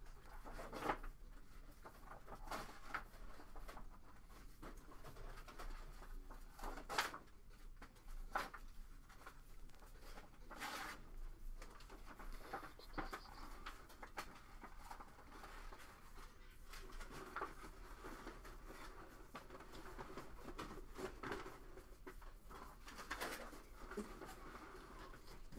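Cardboard trading cards being slid and flicked off a hand-held stack one at a time: soft scattered rustles and flicks, over a faint steady low hum.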